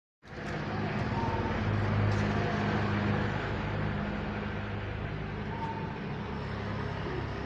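Steady motor-vehicle engine hum with road noise, starting abruptly after a brief silence. A couple of faint short notes sound over it, about a second in and again late.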